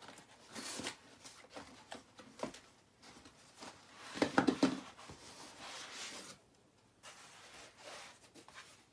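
Cardboard box and packaging being handled: irregular rustling and scraping as the box is opened and a tray of garden lights is slid out, loudest about four seconds in.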